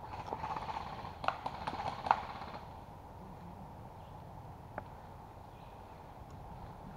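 A run of sharp clicks and rattles over a rustling hiss for about the first two and a half seconds, the loudest click about two seconds in. After that only a faint steady background remains, with one more click near five seconds.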